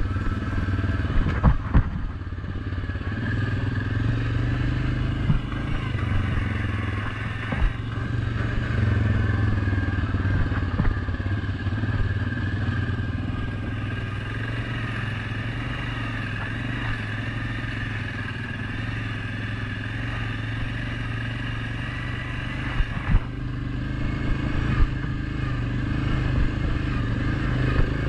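Suzuki KingQuad 750 ATV's single-cylinder engine running steadily at trail speed, its pitch wandering a little with the throttle, with the machine clattering over a bumpy dirt trail. Several sharp knocks come about two seconds in and again near the end.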